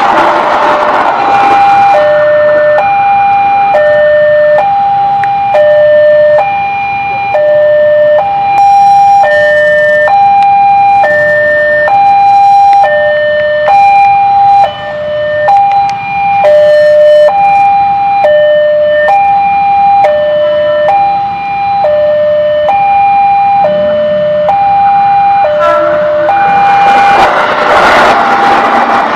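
Railway level-crossing warning alarm sounding an electronic two-tone chime, a high note and a low note alternating about once a second. It means the crossing is closed for an approaching train. The noise of a passing passenger train fades out in the first second or two, and near the end an ex-JR 205 series electric commuter train passes loudly over the alarm.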